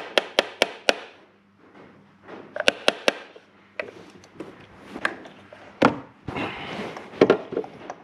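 Hand ratchet and extension clicking as they are worked down a spark plug tube: a quick, even run of sharp clicks at the start, about five a second, then scattered clicks and metallic knocks of the tool against the engine.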